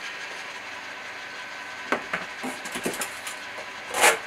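A faint steady whir, then from about two seconds in a run of light clicks and knocks from hands handling things at a desk, with a louder short clatter near the end.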